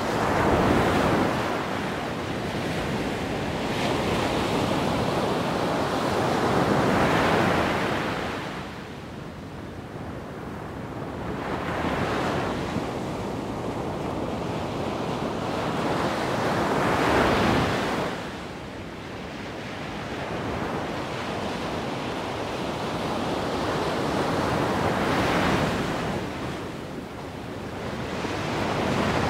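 Wind gusting across the microphone: a rushing noise that swells and eases irregularly every few seconds.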